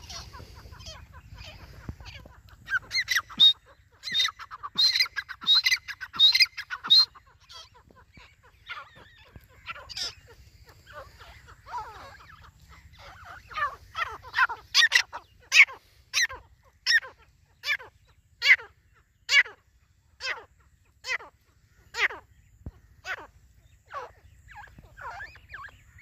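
Grey francolin (teetar) calling: a quick run of loud, sharp calls a few seconds in, then after a pause a long series of single piercing, down-sweeping call notes, a little under one a second, gradually spacing out.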